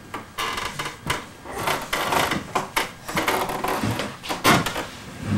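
Wooden chair knocking and scraping on a hardwood floor as a baby grabs it and pulls himself up to stand, with scattered knocks and the loudest one about four and a half seconds in.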